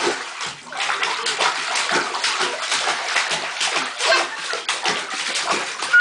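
A toddler slapping and splashing bathwater with his hands in a bathtub, a rapid run of splashes several times a second.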